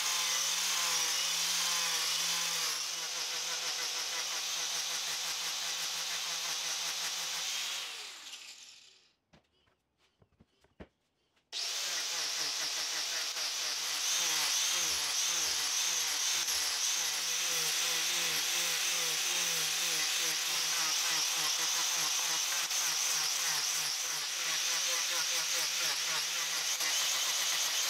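Angle grinder with a power carving disc cutting into a wooden kayak seat blank: a steady motor whine over the rasp of the disc chewing wood. About eight seconds in the grinder winds down to near quiet, with one small click. A few seconds later it is running and carving again.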